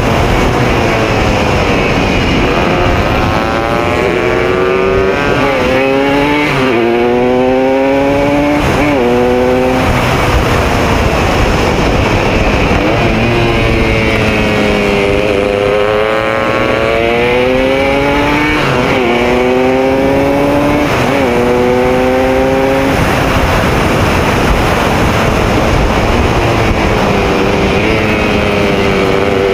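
Classic racing motorcycle engine at race pace, heard from on board over heavy wind rush: its pitch climbs through the gears with a sudden drop at each upshift, falls away into the corners, and climbs again on the exits.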